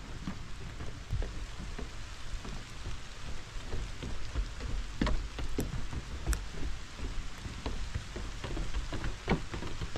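Rain falling: an even hiss with many scattered sharp ticks of drops.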